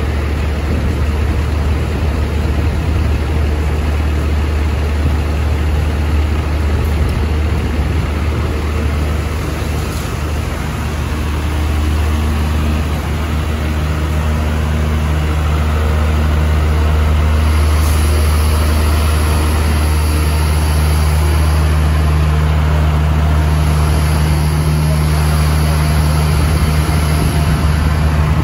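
Vacuum street sweeper truck's engines running steadily with a deep low hum, which grows louder and fuller about halfway through. A faint high hiss comes and goes over the last third.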